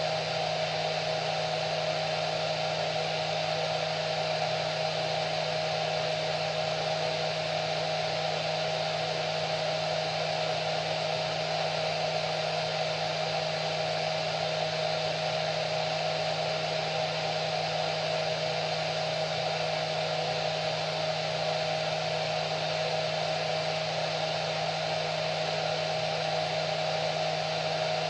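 Electric hair dryer running steadily, a constant blowing whoosh with a steady hum and whine under it.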